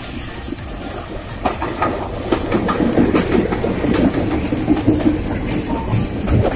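Two KAI diesel-electric locomotives passing close, their engines running with a steady hum. Then the wheels clack over the rail joints as the wagons roll past.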